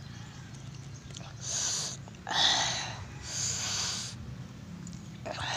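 A man sucks in air sharply through his mouth four times, each a short hissing breath, the second the loudest. These are mouth-watering reactions to the sourness and chili heat as he eats green calamansi with chili.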